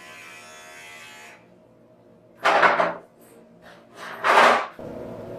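Electric pet hair clipper buzzing steadily, switching off about a second in. Two loud, short rushing bursts follow, then the clipper's buzz starts again near the end.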